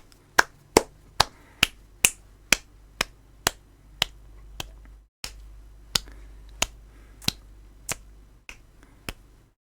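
A run of sharp clicks or snaps, about two a second and not quite evenly spaced, slowing a little after a brief dropout about five seconds in.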